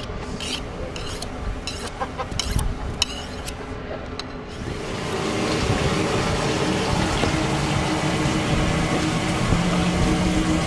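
A knife drawn along a sharpening steel, about eight quick metallic scrapes. About five seconds in, a steady rush of running water with a low hum takes over, as at a fish-cleaning station.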